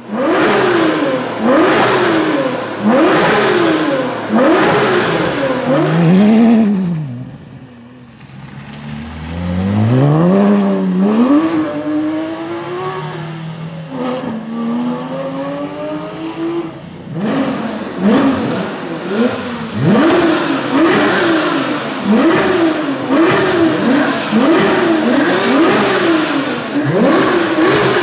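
Porsche 911 GT3 RS flat-six with a loud Cup exhaust, accelerating hard with its revs climbing and dropping sharply at each upshift, again and again. About a quarter of the way through it lifts off and fades briefly, then pulls away climbing steadily, and in the last third it runs up through the gears in quick repeated shifts once more.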